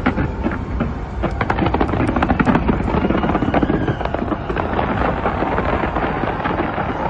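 Fireworks going off in quick, dense succession: a continuous run of bangs and crackles over a low rumble, thickest about one to four seconds in.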